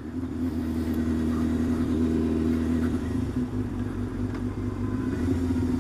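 Yamaha 600 cc inline-four sport bike engine with an aftermarket exhaust, running steadily at a constant cruising speed, picked up by a helmet camera's microphone.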